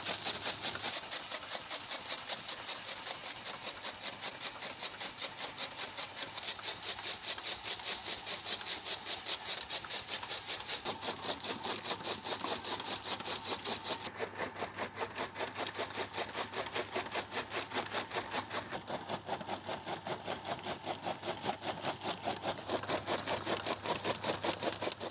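Chaff cutter chopping green fodder stalks as they are fed in by hand: the flywheel's knives cut at a fast, even rhythm, several cuts a second, over a low steady hum.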